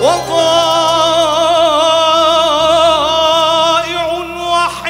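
A male singer holds one long note with a wide vibrato, sliding up into it at the start and letting it go near the end, over a steady instrumental accompaniment.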